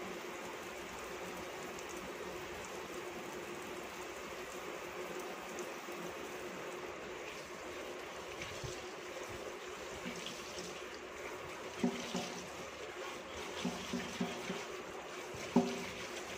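Tap water running steadily from a pull-out spray faucet into a stainless steel sink while a kitchen cloth is rinsed and squeezed under the stream. A few short, sharper splashes come in the last few seconds.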